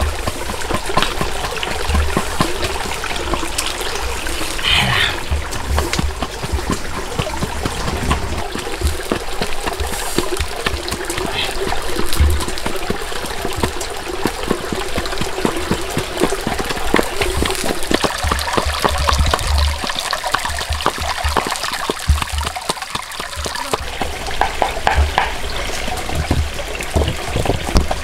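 Shallow stream water trickling over rocks, with irregular dull knocks and clicks of a hand-held stone pounding garlic and chillies in a stone mortar.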